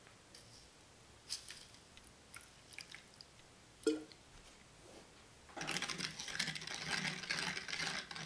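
A metal spoon knocks once against a small glass dish with a short ring, then scrapes and rattles steadily in it from about halfway through, stirring citric acid into water to make a cleaning solution.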